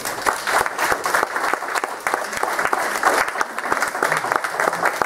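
Audience applauding: many overlapping hand claps that start suddenly and keep up steadily.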